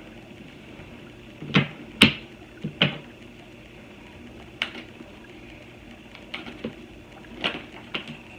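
Tarot cards being handled on a table: about eight sharp, irregularly spaced clicks and taps, the loudest about two seconds in.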